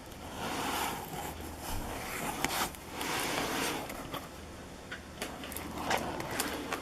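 Packaging of a hockey card box and its packs being handled and opened: rustling and scraping in a few swells, with several sharp clicks.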